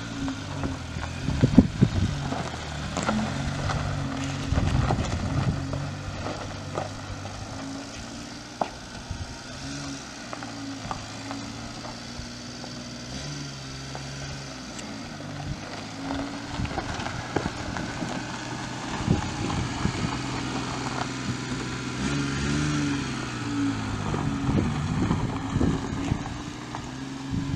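1992 Suzuki VDD51T mini truck's 657cc three-cylinder gas engine running, its revs rising and falling, with scattered knocks and rattles.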